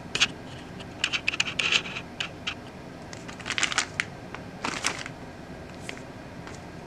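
Clear plastic packaging bag crinkling in short bursts as the bagged trim plate inside is handled and turned over.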